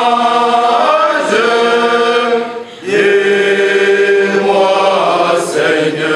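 A group of scouts singing in unison in long held notes, two phrases with a brief break about two and a half seconds in, as part of a scout promise-renewal ceremony.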